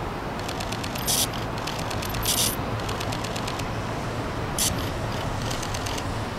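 Steam locomotive CK124, a C12-class 2-6-2 tank engine, working a passenger train: a steady rush of noise with a fast, even beat, broken three times by short, loud hisses of steam.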